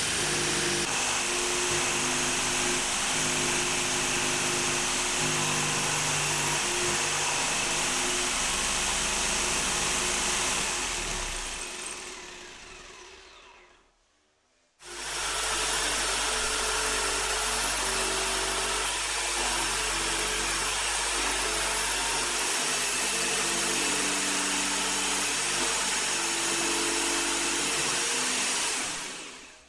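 Jigsaw blade cutting plywood on a table-mounted jigsaw, sped up, mixed with background music that has a steady bass line. The sound fades out about halfway through, stops for a second, then starts again abruptly and fades out near the end.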